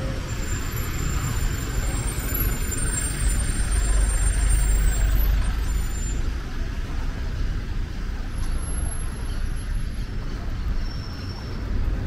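Road traffic passing close on a city avenue: cars and a light truck driving by, with a deep engine rumble that swells to its loudest a few seconds in and then eases.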